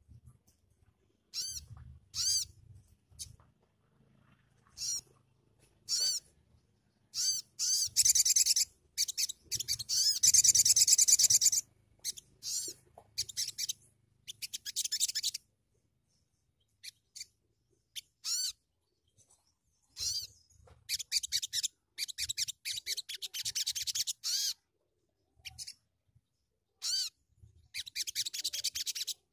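Sogon (sogok ontong), a small sunbird-family songbird, calling in short sharp high chirps broken by several bursts of fast rattling trills.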